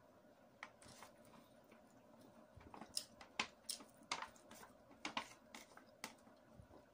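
Eating rice by hand from an aluminium foil tray: a scatter of light, sharp crinkles and clicks as fingers scoop in the tray and she chews, thickest in the second half, over a faint steady hum.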